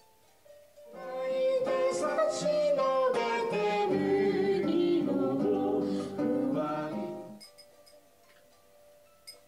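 Background music: a song with singing over acoustic guitar. It comes in about a second in and dies away shortly before the end.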